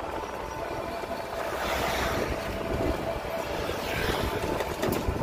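Road noise from a moving vehicle with wind buffeting the microphone, over a faint steady hum; the noise swells twice, about two and about four seconds in.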